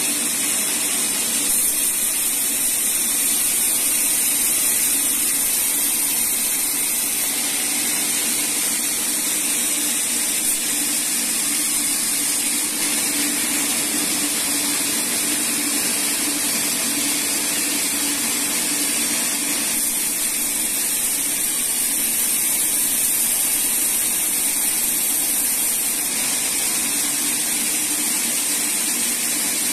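Band sawmill cutting lengthwise through a teak log: a steady, loud high hiss of the blade in the wood over the machine's even running hum.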